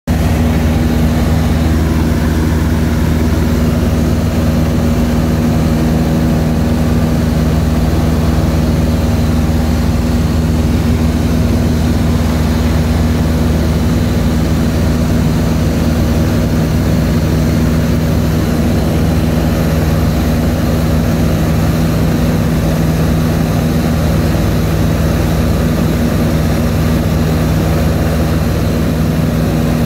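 Light aircraft's engine and propeller running in flight, heard from inside the cockpit: a loud, even hum with steady low tones and no change in pitch.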